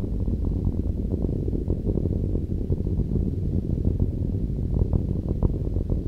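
Rocket engines of an ascending Atlas-Agena heard from afar: a continuous low rumble with irregular crackling, muffled, with no high tones.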